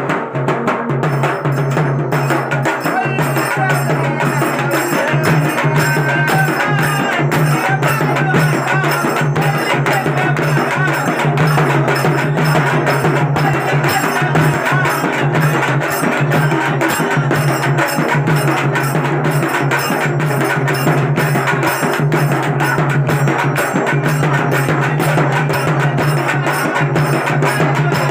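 Traditional devotional drumming: hand drums beaten in a fast, steady, driving rhythm over a steady low tone, starting abruptly.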